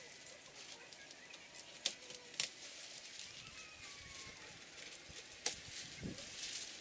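Dry garlic stalks rustling as the hanging bunches are handled, with three sharp snips of scissors cutting through them.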